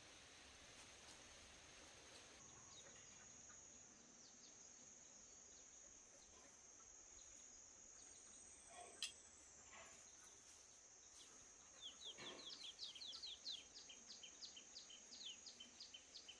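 Faint outdoor ambience: a steady high-pitched insect drone, with a bird calling a quick run of short falling chirps in the last few seconds. A single sharp click comes about halfway.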